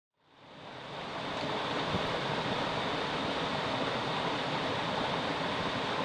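Small mountain stream rushing steadily over rocks, fading in over about the first second.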